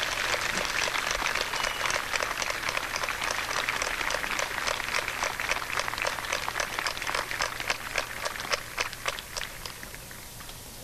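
Audience applauding: a dense clapping that thins out and fades near the end.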